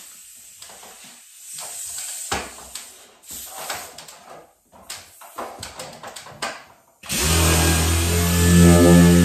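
Scattered clicks and rustles of handling, then about seven seconds in a dual-action orbital sander starts abruptly and runs steadily with a hum and hiss. It is wet-sanding clear coat with a 3000-grit Trizact pad: the cut-and-buff stage before polishing.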